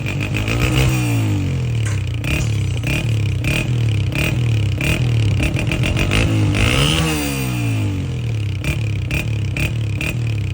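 Honda CG125's single-cylinder four-stroke engine running, revved up and back down twice (about a second in and about seven seconds in) and otherwise idling with a steady pulsing beat. This is the bike's sound after its torn air-filter and intake hoses, which had been leaking pressure, were replaced.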